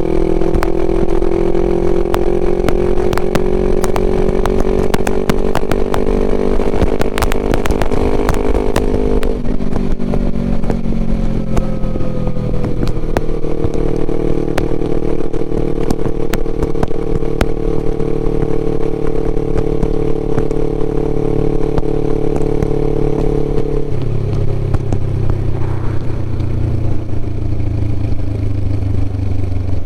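Suzuki GS500E air-cooled parallel-twin running through a Takkoni aftermarket exhaust under way: the revs climb for about nine seconds, drop, settle at a steady pitch, then drop lower again about four-fifths of the way through. Sharp crackles come through during the first climb.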